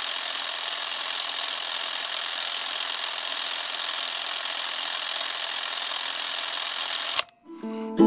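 A steady, even hiss that cuts off suddenly about seven seconds in. Ukulele music begins just before the end.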